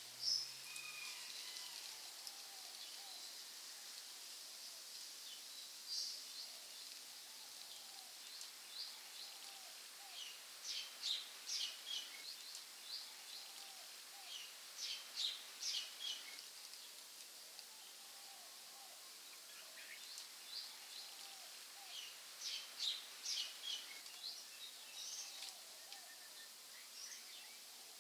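Rainforest ambience: birds calling over a steady high hiss. Short repeated calls run throughout, with three clusters of sharp high chirps.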